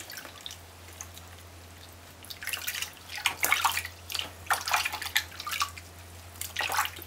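Water splashing and dripping in a plastic bucket as hands dip and rub a young rabbit in it: a run of irregular splashes begins about two seconds in.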